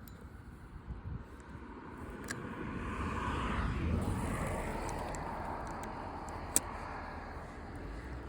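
A car passes by on the road, its tyre and engine noise swelling to its loudest about four seconds in and then slowly fading. Two short sharp clicks, the later one louder, sound over it.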